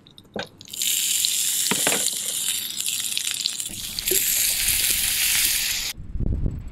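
A few light clinks of a frying-pan lid, then gyoza sizzling in a hot frying pan on a portable gas stove. About four seconds in, water poured into the pan makes the sizzle louder for steam-frying, and it cuts off suddenly near the end.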